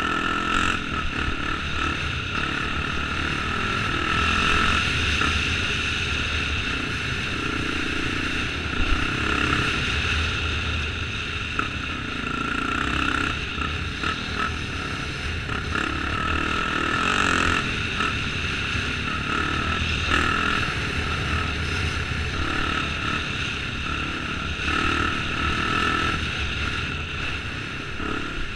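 Honda XR enduro motorcycle's four-stroke single-cylinder engine running steadily while riding along a gravel track, heard from a camera mounted on the bike, with wind noise and small swells in level.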